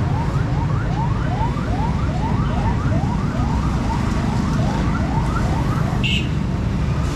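Electronic siren sounding a fast string of rising whoops, about three a second, over a loud steady low rumble; the whoops stop about six seconds in.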